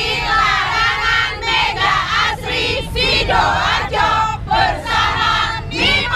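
A group of women's voices shouting and cheering together in short phrases with brief pauses between them.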